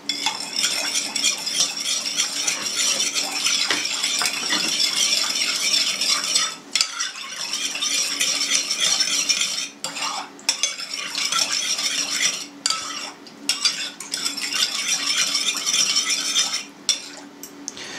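A metal spoon stirring sugar into milk and water in a bowl, scraping and clinking against the bowl, with a few brief pauses.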